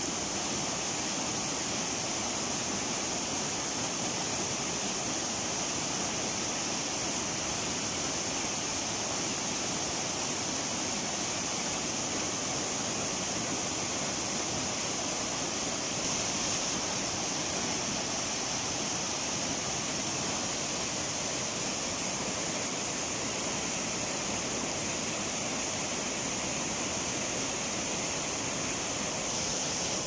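Mountain river rapids: white water rushing steadily over boulders.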